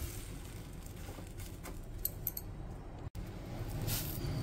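Quiet kitchen handling sounds: a few light clicks and taps over a faint low hum. The sound drops out abruptly for a moment about three seconds in.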